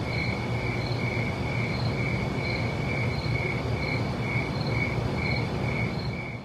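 Insect chirping, a cricket-like pulse repeating about twice a second, over a steady low rumble of ambience.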